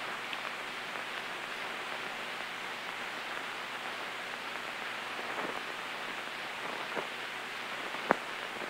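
Shielded metal arc welding: the arc of a coated stick electrode running a horizontal fillet weld, with a steady frying crackle and a few sharper pops in the second half.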